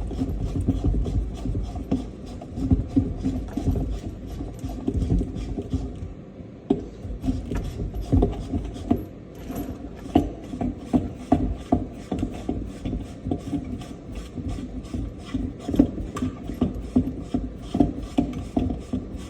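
Faucet mounting nut being worked up the threaded shank under a kitchen sink: a steady run of metal clicks, a few a second, with rubbing and light knocks against the sink.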